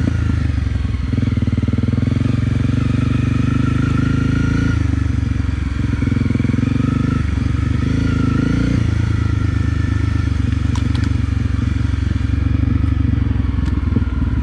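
Honda CRF250 Rally's single-cylinder engine running under load on a dirt hill climb, its pitch stepping up and down a few times with throttle and gear changes. A few light clicks come near the end.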